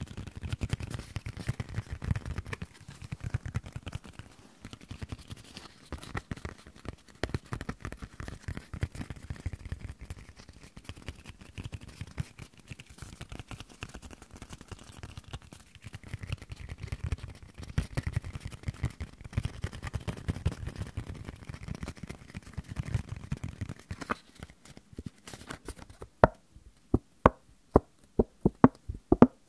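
Close-up hand and paper sounds: a sheet of paper rustled and crinkled between the fingers, then near the end a run of sharp taps, about three a second.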